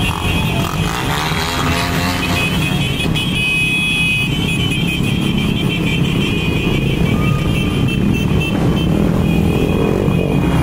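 Many small motorcycles riding past in a steady stream, their engines running together in a continuous rumble, with music playing over them.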